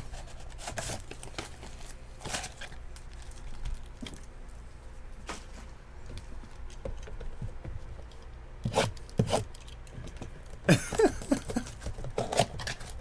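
Trading-card box and pack wrappers being torn open and crinkled by hand, with scattered clicks and taps of handling. The rustling comes in louder clusters about nine seconds in and again near the end.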